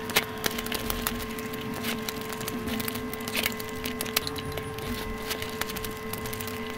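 Close-miked ASMR eating sounds: a person chewing mouthfuls of rice and curry eaten by hand, with many quick, sharp, wet mouth clicks and smacks coming irregularly throughout.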